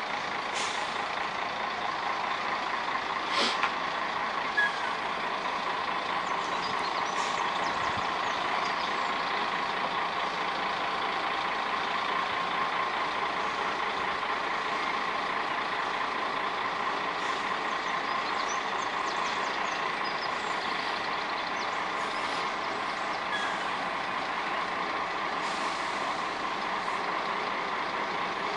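Excavator engine running steadily at a construction site, with a steady whine over the engine noise and two sharp knocks a few seconds in.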